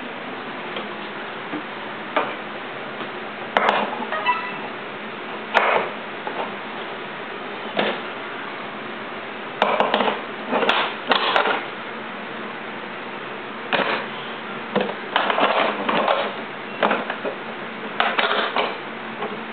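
Ceramic plates and bowls clinking and clattering against each other in a wooden drawer as a toddler picks them up and sets them down, in irregular knocks and short clusters of clatter, one clink ringing briefly.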